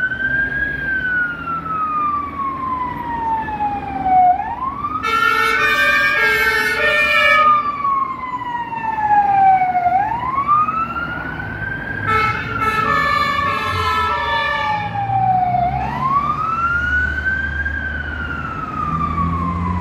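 Fire engine wail sirens: each cycle rises quickly, then falls slowly, repeating about every five and a half seconds. A two-tone Martin air horn blasts over them twice, about five and about twelve seconds in, each time for a couple of seconds.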